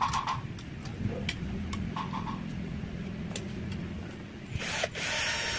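Ratchet wrench clicking in short quick runs, with scattered single metal clicks, as bolts are tightened on a Honda Scoopy's CVT cover. About four and a half seconds in, a louder steady rushing noise starts.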